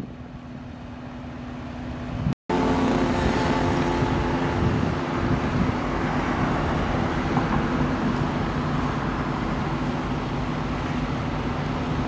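Parked fire engine's engine running with a steady hum. The sound cuts out for an instant about two seconds in and comes back louder.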